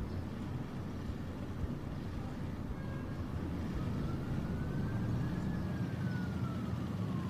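Steady low background rumble. In the second half, a faint siren gives one slow wail that rises and then falls in pitch over about three seconds.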